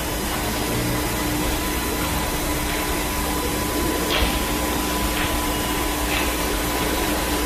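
A steady, even hiss with a faint steady hum under it, unchanging throughout.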